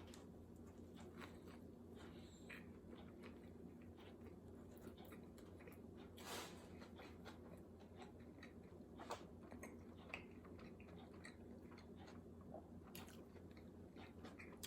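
Faint, close chewing of a mouthful of burger: scattered soft wet smacks and clicks, a little louder about six seconds in, over a low steady hum.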